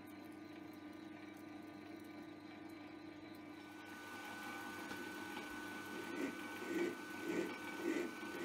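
Metal lathe running steadily with a low hum, turning an aluminium workpiece. From about halfway through a hand file is stroked against the spinning aluminium, a rhythmic rasp of about two strokes a second.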